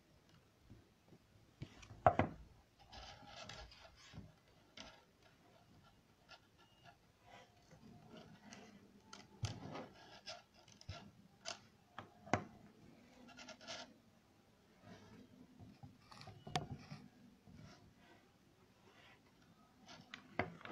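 Handling noise from twisting and bending the thin wire leads of small electronic components by hand: scattered soft rustles and scrapes broken by a few sharp clicks and knocks, the loudest about two seconds in.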